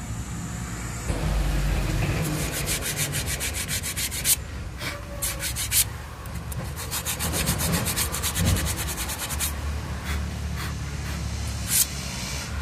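Abrasive polish paper rubbed back and forth over the brake shoe linings of a Bajaj auto rickshaw drum brake, scuffing off rust from the lining surface. It goes in quick scraping strokes of about five a second, in two spells with a short break near the middle, then a few scattered strokes.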